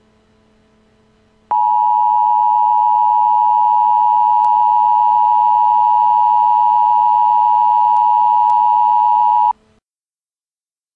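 Emergency Alert System attention signal: one loud, steady tone held for about eight seconds. It starts abruptly about a second and a half in and cuts off sharply, warning that an emergency message follows.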